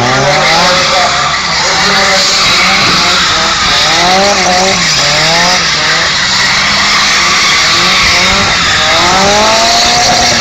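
Two cars drifting around each other, their engines revving hard with the pitch climbing and dropping again and again over a steady hiss of spinning tyres.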